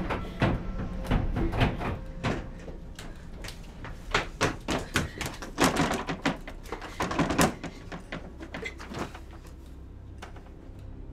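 A fist pounding on the wooden door of an old tram car: an irregular series of hard knocks coming in bunches, thinning out about eight seconds in to a couple of last knocks.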